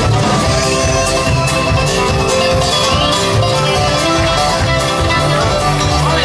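Live folk-punk band playing a fast, bluegrass-tinged passage: strummed acoustic guitars, banjo, upright bass and drums keeping a steady beat. It is loud and slightly harsh, as a phone picks it up close to the stage.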